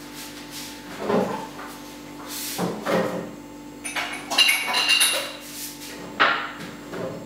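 Scattered knocks and clatter of kitchen things being handled off to the side, about five of them, with a cluster of clinks carrying a short ringing tone near the middle.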